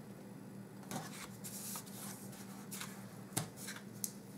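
Faint rustling of double-sided tape being unrolled from its roll and pressed along a cardstock flap, with a few short sharp clicks, the loudest a little after the middle.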